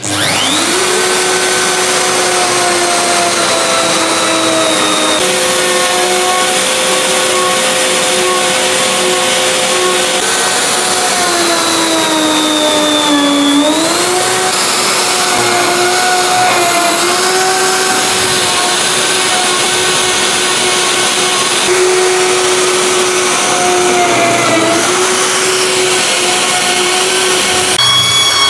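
Festool OF 1400 EBQ plunge router spins up with a rising whine, then runs at high speed with a steady high-pitched hum. Its pitch sags in places under load as a 19 mm top-bearing pattern bit routes pre-drilled holes out to size along an MDF template. Right at the end the sound switches to a belt sander running.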